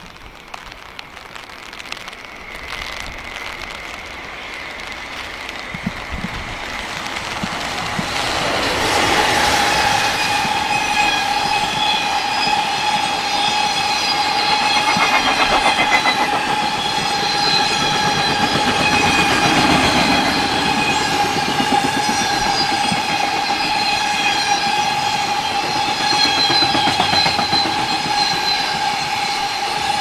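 Container freight train approaching over light rain and then passing close by. Its rumble grows over the first several seconds, then gives way to the steady, rhythmic clatter of wagon wheels over the rails, with a steady high-pitched whine above it.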